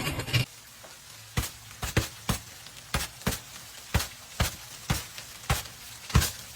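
About a dozen sharp cracks at uneven intervals, half a second to a second apart: ice being struck and broken.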